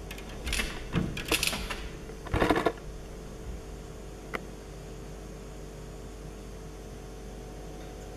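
Maltese terrier puppy's paws scratching and patting against a glass door in several quick scratchy bursts for about two seconds, then one light tap a little later. A steady low hum runs underneath.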